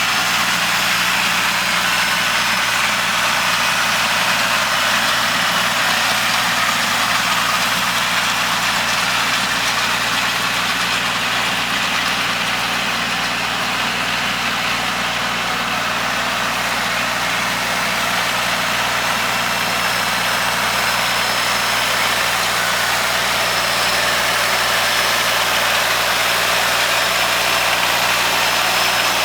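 Kubota L3200 tractor's three-cylinder diesel engine running steadily at a constant speed, with an even machinery hum and no changes in pace.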